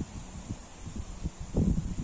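Wind buffeting the microphone in irregular low thumps and rumble, the strongest about one and a half seconds in, over a faint steady hiss.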